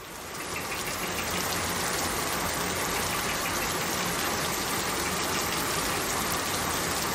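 Steady rain falling, an even hiss that fades in over the first second, with a faint quick ticking near the start.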